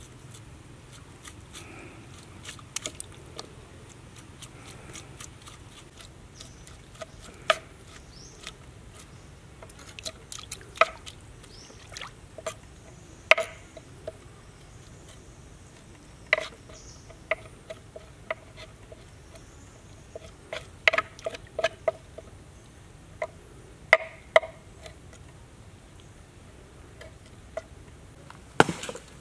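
Large kitchen knife chopping raw fish meat on a wooden cutting board: sharp knocks of the blade striking the board at irregular intervals, some in quick runs of several strokes, a few with a brief ring.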